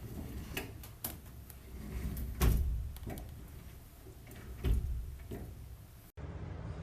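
A series of clicks and knocks, as of a hard object being handled and set down, with two louder thumps about two and a half and nearly five seconds in. Near the end the sound cuts off abruptly and gives way to a steady hiss.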